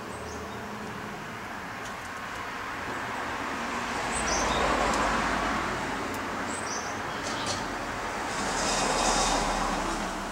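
Road traffic passing, swelling twice, about four and nine seconds in, with a few faint, short, high bird chirps.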